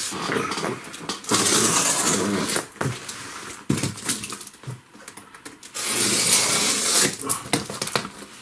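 Clear packing tape being cut with a small blade and torn off a heavily taped cardboard box: two long tearing noises, one beginning about a second in and one about six seconds in, with scrapes and clicks between.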